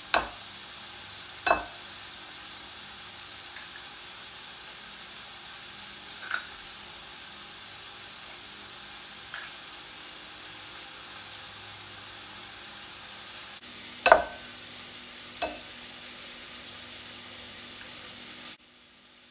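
Bacon frying in a skillet, a steady sizzle, with sharp taps of eggs being cracked on a bowl: two near the start and two more about fourteen seconds in. The sizzle drops away near the end.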